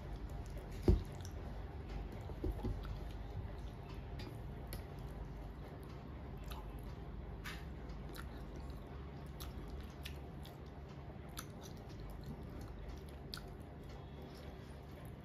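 A person eating rice by hand: soft chewing and the wet squish of fingers mixing rice and dal on a metal plate, with small scattered clicks. A sharp knock about a second in is the loudest sound, and two lighter knocks follow shortly after.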